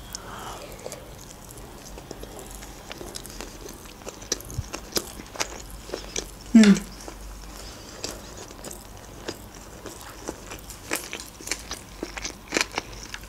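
A person chewing a mouthful of sushi roll, with many soft wet mouth clicks. About six and a half seconds in there is one short hummed vocal sound.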